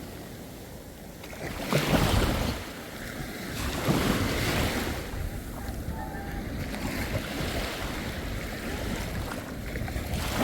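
Waves breaking on the shore, with two louder surges about two and four seconds in, and wind buffeting the microphone.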